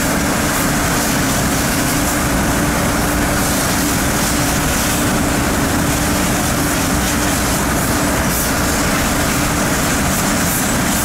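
Car-wash pressure washer spraying a car: a steady, loud hiss of water with a constant hum underneath.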